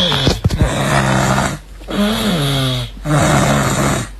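Loud, rhythmic snoring: about three snores in a row, each a rattling drone with a clear low pitch that sometimes sags downward, separated by short breaths.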